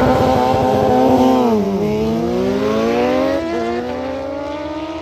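Race car engine at high revs. About two seconds in the pitch drops sharply as it comes off the throttle, then climbs steadily again as it accelerates, with a brief dip at a gear change, growing fainter as it moves away.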